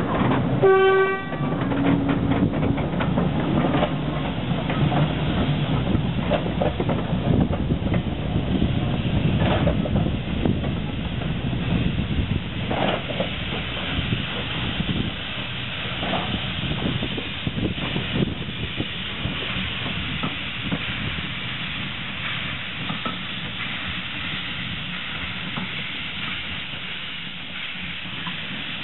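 Small industrial steam tank locomotives moving short trains of old coaches: a short, shrill steam whistle about a second in, then irregular clanks and knocks of wheels and couplings with steam hiss, slowly fading as the train draws away.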